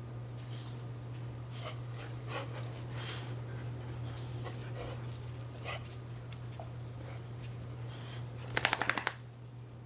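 Dogs moving about and panting, over a steady low hum, with a quick run of short, sharp sounds near the end.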